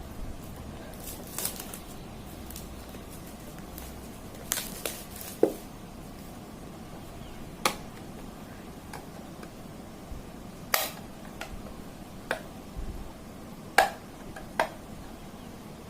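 Hands handling an action camera and its plastic packaging during an unboxing: scattered sharp clicks and light knocks at irregular intervals over a faint background hiss.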